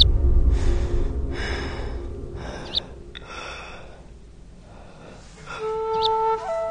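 A man's heavy gasping breaths, about four, growing weaker, over a low rumble at the start, with a few short high chirps. A flute melody begins near the end.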